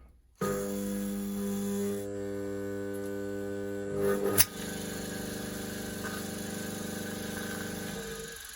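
Old electric motor running with a steady electrical hum. There is a sharp click about four and a half seconds in, and the hum dies away shortly before the end.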